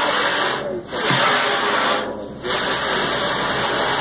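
Hard spray of water from a hose nozzle hitting a fish-cleaning table, a steady loud hiss that cuts out briefly twice.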